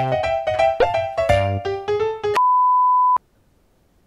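Bouncy keyboard intro music with quick, short notes, which stops about two and a half seconds in. A single steady electronic beep follows for just under a second and cuts off sharply, leaving faint room tone.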